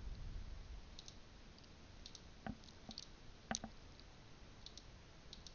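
Computer mouse buttons clicking a handful of times, short sharp clicks spaced irregularly, the loudest about three and a half seconds in.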